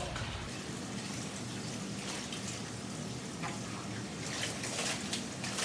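Water swirling and draining in a giant toilet bowl full of marshmallows, a steady wash with a few light knocks in the second half. The marshmallows are clogging the drain.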